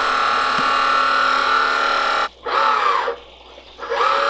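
Water-Right Sanitizer Plus softener control valve's drive motor running with a steady whine as it drives the valve back to its softening position; it cuts off suddenly a little past halfway. Two short voice-like sounds follow.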